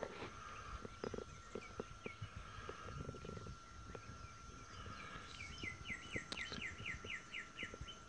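A bird calling outdoors: scattered short chirps, then, about five seconds in, a quick run of about ten downward-slurred notes, roughly four a second. Under it run a faint steady high tone and light irregular scuffs and knocks.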